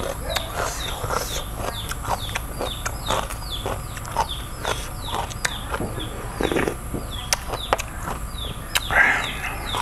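Chickens calling nearby, a short high call repeated two or three times a second, over the close clicks and smacks of someone eating sea snails.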